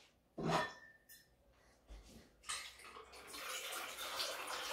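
A short knock about half a second in, then, from about two and a half seconds in, a steady stream of clear liquid poured from a bottle held high into a stainless steel cocktail shaker tin.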